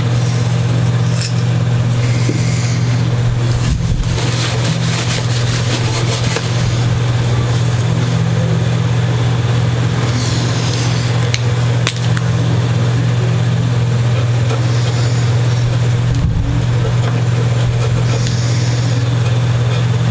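A loud, steady low hum that holds one pitch throughout, with brief patches of high hiss every few seconds and a couple of sharp clicks.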